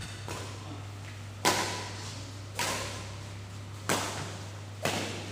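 Badminton rally: four sharp racket-on-shuttlecock hits about a second apart, the first the loudest, over a steady low hum.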